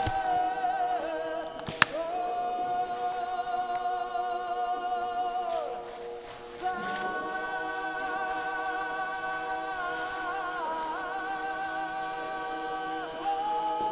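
Unaccompanied choral chanting: several voices hold long, slowly moving notes over a steady drone. The phrase breaks off about six seconds in and a new held phrase begins. A single sharp click sounds just under two seconds in.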